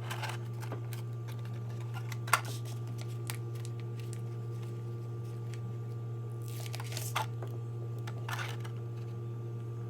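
Plastic packaging rustling and a few sharp handling clicks as the RC car's hand-held controller is taken out and handled, over a steady low hum.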